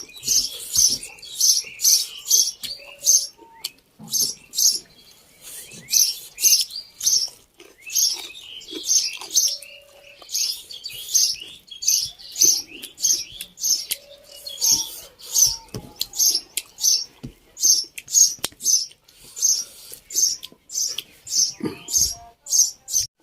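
Close-up chewing of food during a mukbang, with short crisp mouth sounds repeating about twice a second.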